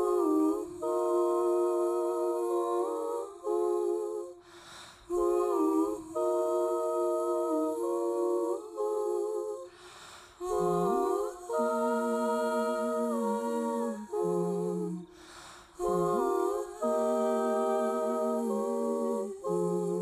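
Woman's voice singing wordless, a cappella held notes in phrases of a few seconds each, with breaths between the phrases. In places two vocal lines sound at once.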